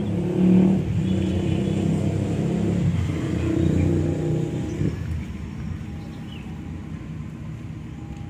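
A motor engine running close by, loud with a low hum for about five seconds, then dying away.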